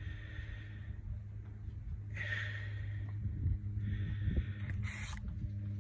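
A man breathing close to the microphone, a few slow breaths over a low steady hum, with a short hiss about five seconds in.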